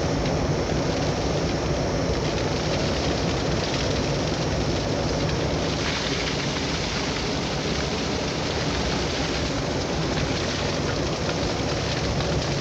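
Steady rushing noise of a vehicle driving on a snowy road, with a low engine hum underneath.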